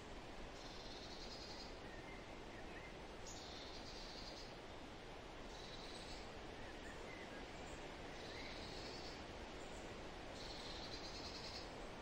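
Outdoor nature ambience: a high, buzzy trill of about a second repeats five times, every two seconds or so, over a steady hiss, with faint short chirps between the trills.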